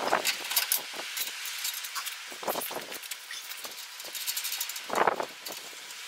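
Metal clinks and knocks of hand tools and parts being handled on a truck's rear frame and axle, in three short clusters: at the start, about two and a half seconds in, and about five seconds in.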